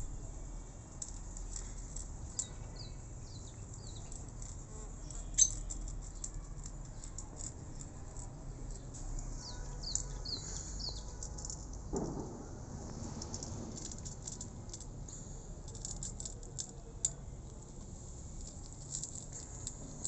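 A cat crunching dry kibble from a plate: a steady run of small crisp crunches and clicks, with one sharper click about five seconds in.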